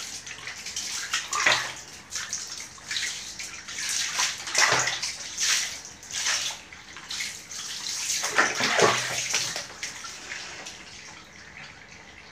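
Water poured from a plastic dipper over a soapy cat and splashing onto a tiled floor, pour after pour as the shampoo is rinsed off; the splashing dies away near the end.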